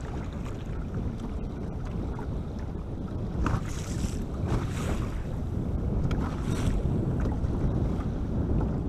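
Wind buffeting the microphone, with choppy waves slapping against the boat's hull; a few louder splashes come between about three and a half and seven seconds in.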